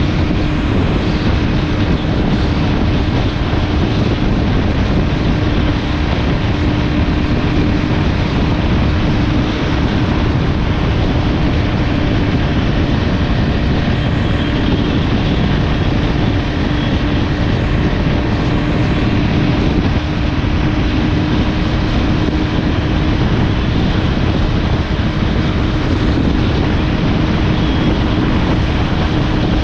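Motorcycle under way at a steady speed: a constant engine drone with one unchanging hum, under heavy wind and road noise on the microphone.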